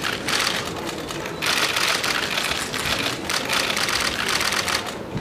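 Many camera shutters firing in rapid, overlapping bursts, press photographers shooting a posed group photo.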